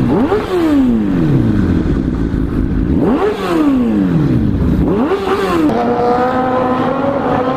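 Motorcycle engine revved by the throttle about three times, each time its pitch jumping up quickly and then slowly sliding back down, then held at steady revs near the end.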